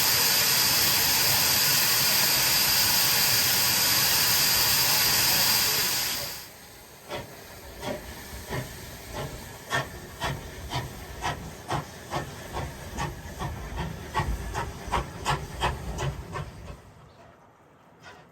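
Steam locomotive blowing off steam in a loud, steady hiss that cuts off sharply about six seconds in. A quieter, quickening run of sharp clicks follows, about two a second, fading near the end.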